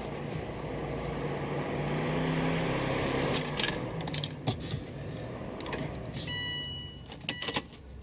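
Keys jangling on their ring at the ignition as the key is worked, over the steady rush of the car's heater blower fan, which swells and eases off. An electronic beep starts near the end.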